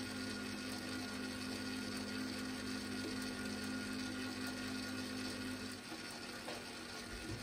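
Spiral dough mixer running with a steady motor hum as its hook kneads a soft, over-hydrated dough. One tone in the hum drops out about six seconds in.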